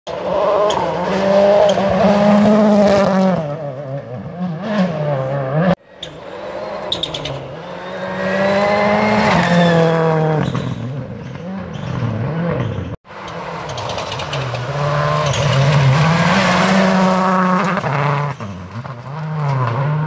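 Rally car engine at full throttle, its pitch repeatedly climbing and dropping with gear changes and lifts as the car passes. The sound breaks off sharply twice, about six and thirteen seconds in.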